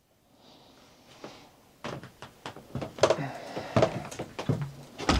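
A series of irregular knocks and clatters, like a wooden door and its latch being handled, starting about two seconds in after near quiet.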